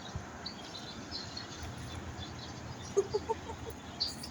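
Small birds chirping faintly over low outdoor background noise. About three seconds in comes a quick run of five or six short, lower-pitched calls.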